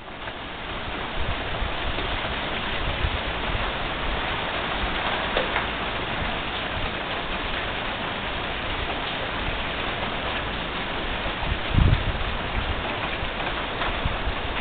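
Steady hiss of rain, with a brief low thump about twelve seconds in.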